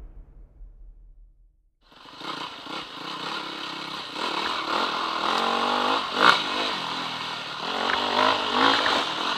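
Trail motorbike engine rising and falling in pitch as it revs and backs off over a rough dirt track, starting about two seconds in after a near-silent opening, with a sharp knock about six seconds in.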